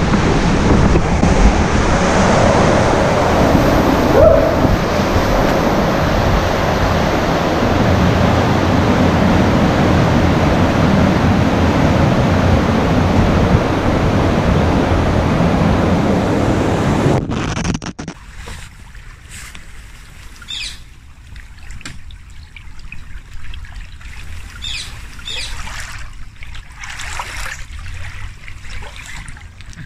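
Loud, steady rush of white water as a packraft runs through it inside a brick river culvert. About 17 seconds in it cuts to a much quieter stretch of gently trickling river water with scattered small splashes.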